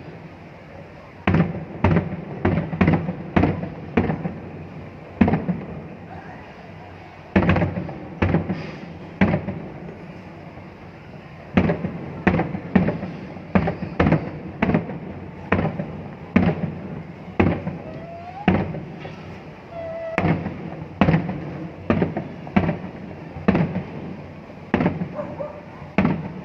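Aerial fireworks display: a long run of sharp shell bursts, often one or two bangs a second, with a couple of short lulls.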